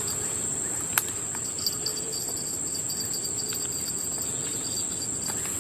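Insects chirring in a steady, high, unbroken drone, with a fainter broken trill below it and a single sharp click about a second in.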